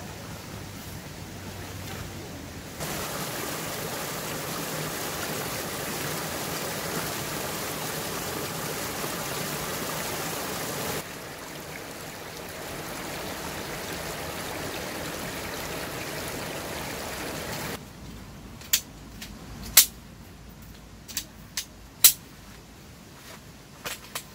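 Small stream's water running with a steady rushing noise, which jumps in level abruptly twice and then drops away about three-quarters through. A handful of sharp clicks follow near the end, the loudest sounds here.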